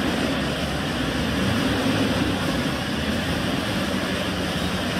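Toyota Prado 4WD's engine running in a steady low drone while the vehicle is under a winch recovery on a steep, rutted climb.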